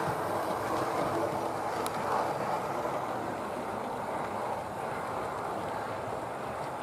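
Model LNER W1 No. 10000 locomotive running along model railway track, giving a steady running noise from its motor and wheels on the rails.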